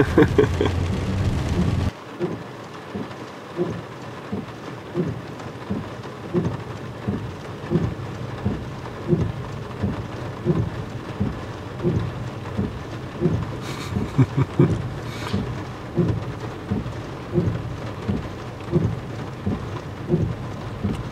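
Heavy rain falling steadily, with a regular low thump about every half second.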